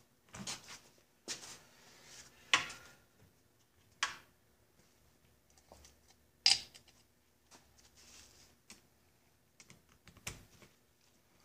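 Scattered knocks and clicks of metal parts being handled on a workbench: a Johnson 9.5 HP outboard powerhead being gripped and shifted, and tools picked up. The loudest knocks come about two and a half and six and a half seconds in.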